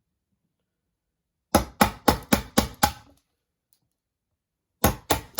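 A wood chisel being struck in quick runs of blows, about four a second: a run of six about a second and a half in, and another run starting near the end, chopping out a butt-hinge recess in a door edge at an angle.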